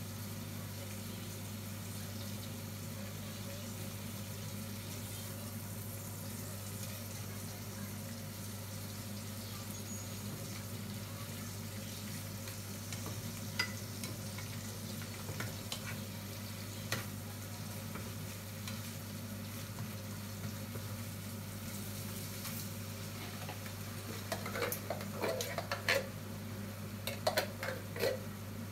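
Shrimp sizzling steadily in a frying pan, with an occasional click of the spatula as they are turned. Near the end, a cluster of knocks and clatters as chopped tomatoes are tipped from a can into the pan.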